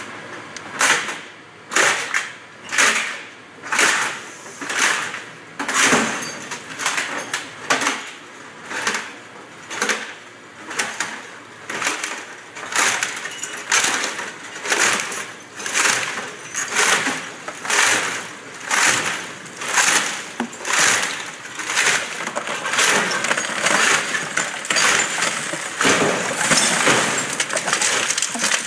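Prodeva recycling crusher breaking up computer and monitor scrap: a crash of breaking, clinking material about once a second, running together into a continuous clatter of crushed pieces near the end as the debris spills out onto the chain conveyor.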